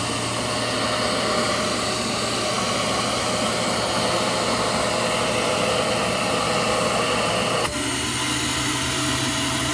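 Hoover Powerdrive XL vacuum cleaner motor running steadily with a rushing air noise and a low hum. About eight seconds in, the sound changes abruptly, with a brief dip and then a different, steadier tone, as the suction is tested.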